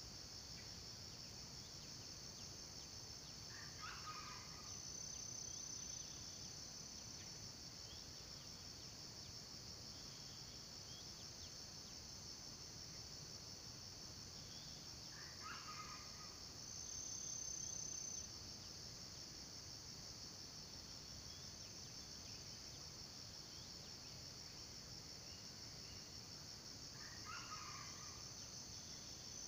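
A steady, high, even insect chorus, with a brighter buzzing tone swelling over it a few times. A red junglefowl rooster gives short crows three times, about every twelve seconds: near the start, in the middle and near the end.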